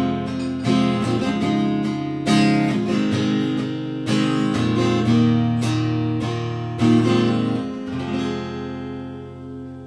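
Acoustic guitar strumming chords as a song's outro, the last chord struck about eight seconds in and left to ring out and fade.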